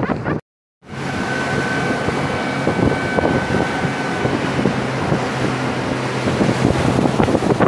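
Motorboat engine running steadily under way, with wind buffeting the microphone. The sound drops out completely for a moment about half a second in.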